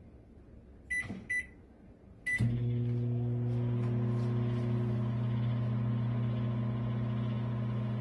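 Microwave oven keypad beeping twice as the time is keyed in, then a third beep as Start is pressed, after which the oven starts running with a steady hum.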